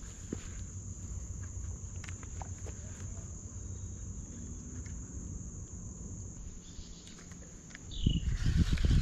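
Steady high-pitched insect buzz over a low rumble of wind on the microphone. Near the end, a louder burst of low thumps and rumble breaks in.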